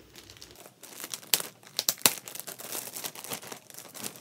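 Thin plastic wrapping crinkling and crackling as it is handled and pulled off a new laptop, in quick irregular crackles with the sharpest ones about a second and a half and two seconds in.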